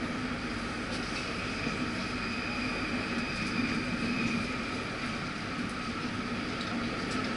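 Paris Métro Line 2 train running between stations, heard from inside the carriage: a steady running noise with a low hum and a higher steady tone.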